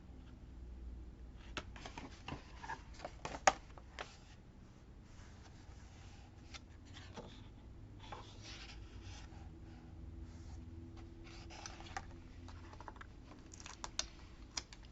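Paper and sticker sheets being handled and pressed onto a journal page: light rustling and scattered small clicks and taps, the sharpest about three and a half seconds in.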